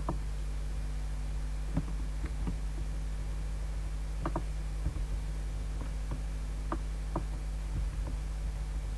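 Steady low electrical hum with a buzz, and a few short, faint computer mouse clicks scattered through it.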